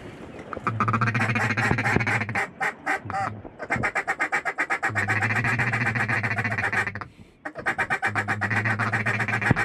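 Duck call blown in fast chattering runs of clucks and quacks to bring in a circling duck. Three long runs with short breaks between them.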